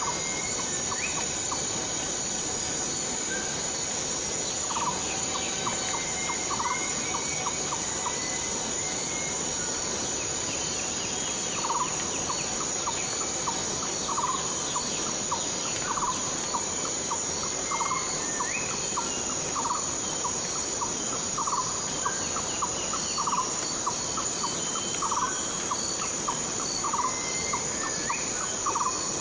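Rainforest ambience in the rain: a steady hiss of rainfall under a constant high-pitched insect drone. A little under halfway in, a short call starts repeating about every two seconds, with a few higher rising chirps scattered through.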